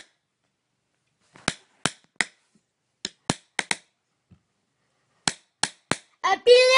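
A pencil tapped like a drumstick: sharp, dry taps in short irregular runs of three or four, with pauses between. Near the end a child's voice starts singing over them.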